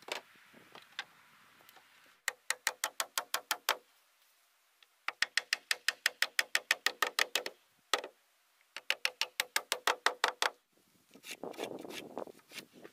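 Three quick runs of hatchet strikes driving nails into pine cladding boards, each blow a sharp ringing knock, about eight or nine a second. A short scraping rub of wood follows near the end.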